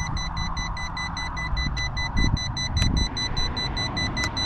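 High-pitched electronic beeping from a Yu Xiang F11 RC helicopter setup, a steady tone with overtones over a low rumble. It is a warning that the owner thinks comes from the throttle lever being up.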